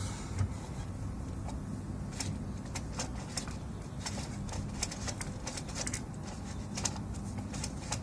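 Light, irregular clicks and taps, such as hands handling a PS4 Slim console and pressing its buttons, over a steady low hum.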